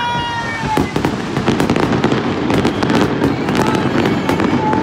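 Aerial fireworks display: a dense, rapid run of bangs and crackles over a continuous rumble of bursts.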